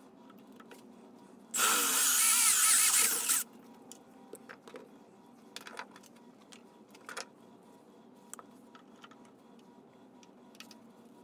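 Power drill running a twist bit through an aluminium plate for about two seconds, starting about a second and a half in and then stopping. Faint scattered clicks of handling follow.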